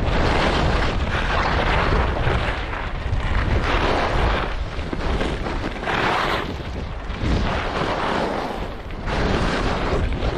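Skis hissing through snow in a run of turns, the swish swelling with each turn about every second or two, over a steady low rumble of wind buffeting the microphone.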